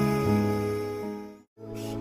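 Gentle background music with held notes that fades out about a second and a half in, breaks off into a brief silence, then starts again near the end.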